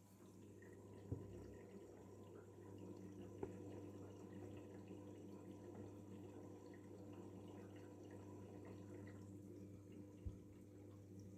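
Daewoo DWD-FT1013 washing machine in its rinse phase: water running and dripping inside the machine over a steady low electrical hum, with three short sharp clicks.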